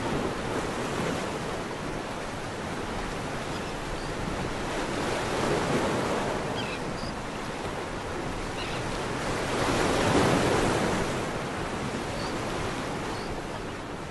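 Steady rushing noise, like surf or wind, that swells up twice and falls back, with a few faint short high chirps scattered through it.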